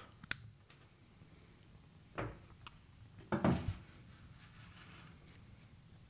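Hand wire cutters snipping off the rubber filler cord inside a 12-gauge three-conductor power cable, one sharp snip just after the start, followed by quiet handling of the cable with two louder rustles.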